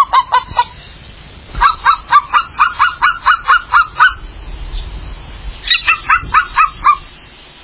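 A bird calling in loud, quick repeated notes, about five a second, in three bouts: one that ends about half a second in, a longer one of about two and a half seconds from a second and a half in, and a shorter one near the end.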